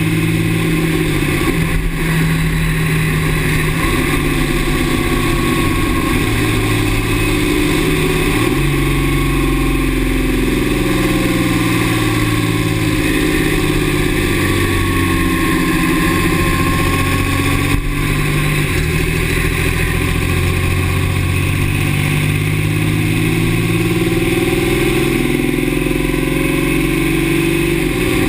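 2009 Dodge 6.7 L Cummins inline-six turbo-diesel running under way, its pitch repeatedly rising and falling. A faint high whine drifts in pitch over it in the middle stretch.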